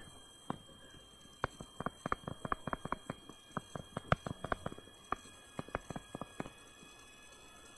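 A stylus tapping and scratching on a tablet screen while handwriting: a run of quick, irregular light clicks that stops shortly before the end.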